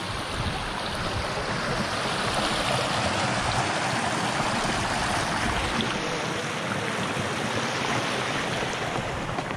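Small rocky woodland creek flowing over stones, a steady rush of water that grows a little louder a couple of seconds in and eases slightly later on.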